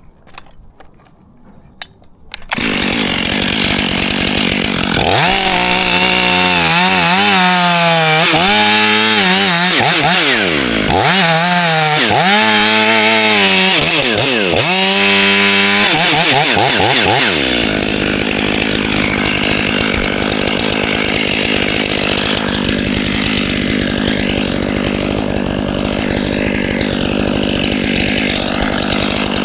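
Large two-stroke chainsaw (the climber's '500') starts about two and a half seconds in. Its revs rise and fall several times, then it holds at steady high revs for the rest of the time.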